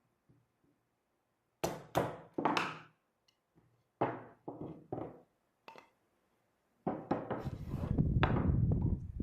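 Hammer blows on cedar wood: separate knocks, three close together in the first few seconds and four more spaced through the middle, then a longer stretch of continuous noise near the end.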